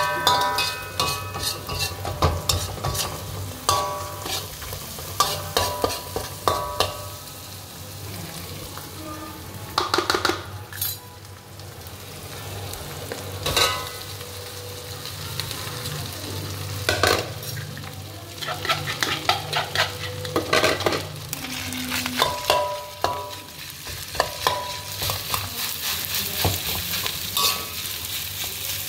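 A metal spatula scrapes and clanks against a steel wok in repeated bursts of short metallic rings while scrambled egg and pounded aromatics sizzle. About halfway through, cooked rice is tipped in and stir-fried with the same scraping and tapping. A steady low hum runs underneath.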